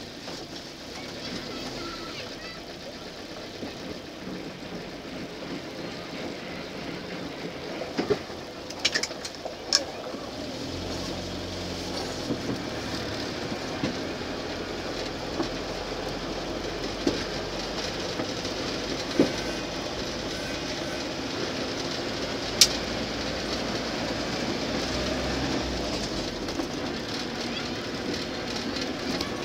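Land Rover Series II driving over a rough track: a steady running rumble with rattles and a few sharp knocks, heavier for a while in the middle and growing slowly louder.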